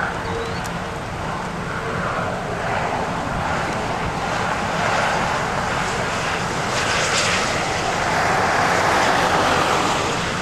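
Highway traffic passing close by: a motorhome and then a car go past, a steady rush of engine and tyre noise that swells in the second half.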